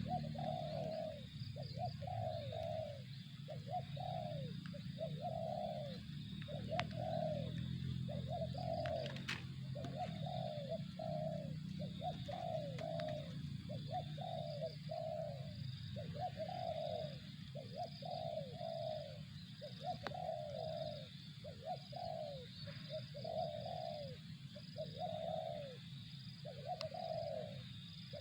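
Spotted dove (tekukur) cooing steadily: a long unbroken run of short coo notes, about one to two a second, over a steady faint high buzz and low rumble.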